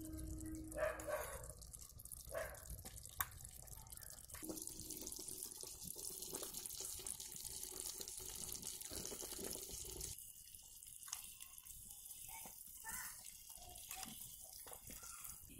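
Faint hiss and bubbling of vegetable noodles simmering in broth in a tiny steel kadai. A few light metal clicks near the end as the pot is handled.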